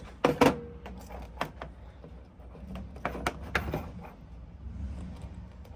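Tools and parts being handled on a workbench: a few sharp clicks and knocks, the loudest a metallic clink about half a second in that rings briefly, with more clatter around three to four seconds in.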